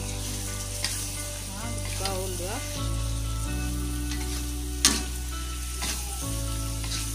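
Prawns, onion and petai frying in chilli sambal in a wok, sizzling while a metal spatula stirs them. The spatula scrapes and knocks against the pan a few times, the sharpest knock about five seconds in.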